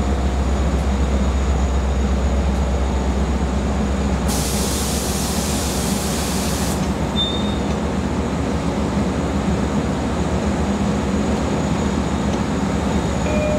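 Diesel train running steadily with a low rumble, and a hiss that starts about four seconds in and cuts off suddenly some two and a half seconds later.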